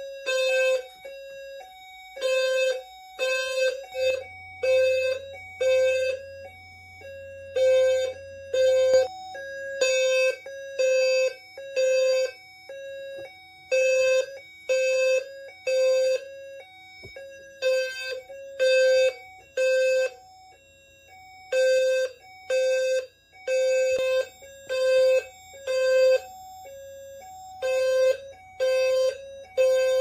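System Sensor low-frequency horn-strobes (P2RHLF and HRLF) sounding together in sync on the code-3 temporal pattern: short low-pitched beeps repeating, the fire alarm in alarm after a heat detector was tripped.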